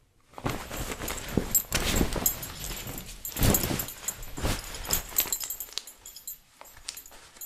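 Fart sound effect: a series of irregular noisy bursts of varying length, some short and some drawn out.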